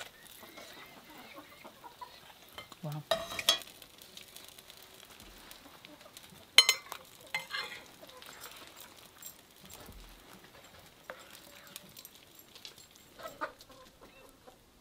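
Metal serving utensils clinking and scraping against plates and a cast-iron skillet as food is served, a few sharp clinks with the loudest about halfway through. Chickens cluck faintly in the background.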